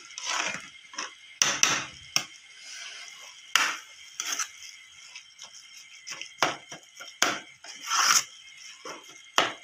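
Metal spatula scraping and knocking irregularly against a metal karahi while stirring grated radish filling that is being fried dry to drive off its water.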